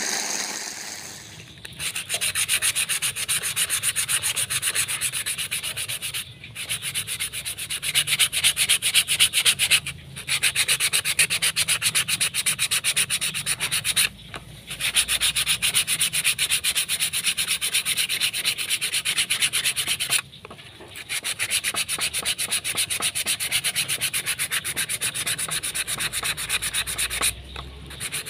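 Sandpaper rubbed by hand along a small steel blade ground from a concrete nail, laid on a wooden plank. It goes in fast back-and-forth strokes, in runs of several seconds broken by a few short pauses. In the first second or so, a belt sander's motor dies away.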